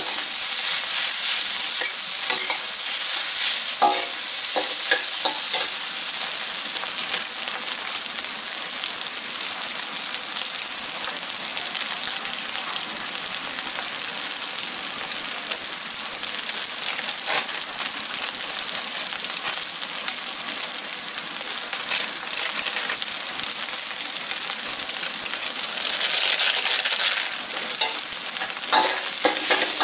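Rice sizzling in a hot steel wok, a steady frying hiss. A metal spatula scrapes and taps against the wok in quick clusters of clicks a few seconds in and again near the end, and the sizzle briefly flares louder shortly before the end.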